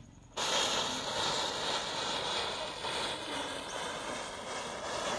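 Rows of standing matchsticks catching one after another, the match heads flaring in a chain with a steady hiss that starts about half a second in.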